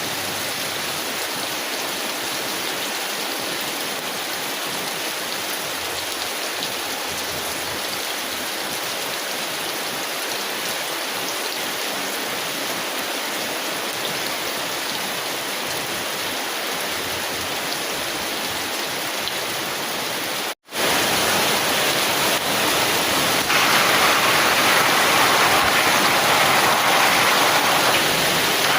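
Heavy rain falling on a tin umbrella, a steady dense hiss. It cuts out for a split second about two-thirds of the way through, then returns louder and brighter.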